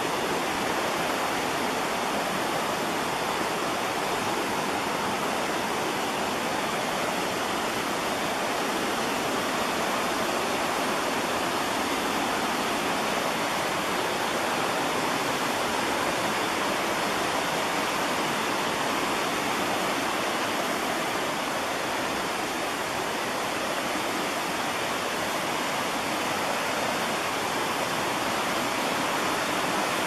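Steady rushing of a forest creek tumbling over rocks and small rapids.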